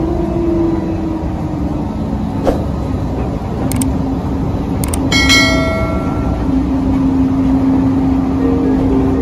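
Automated people mover train running: a steady rumble with a motor hum that drops slightly in pitch in the first couple of seconds and then holds. Over it, a subscribe-button sound effect: a few clicks and then a bell-like chime about five seconds in that rings out for about a second.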